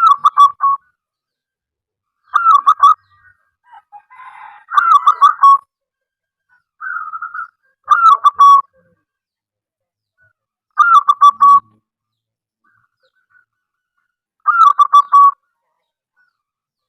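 Zebra dove (perkutut) cooing: six short staccato phrases, each opening with a falling note and ending in a quick stuttered run, repeated about every three seconds.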